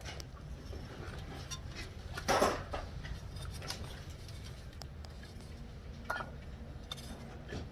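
Light metallic clinks and knocks of hard parts being handled, with a louder rattle about two seconds in and a sharp click near six seconds, over a low steady hum.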